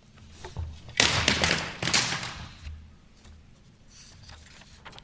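A brief burst of rustling with quick taps and knocks, starting about a second in and lasting about a second and a half, over faint room noise.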